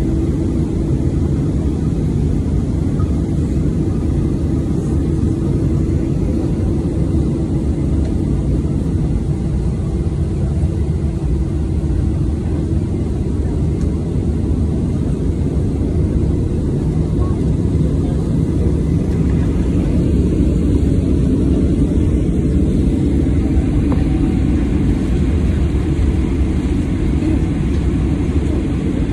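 Steady cabin noise of a Boeing 737-800's CFM56-7B jet engines at taxi power, heard from a window seat beside the engine. It is a dense low rumble that swells slightly about two-thirds of the way through.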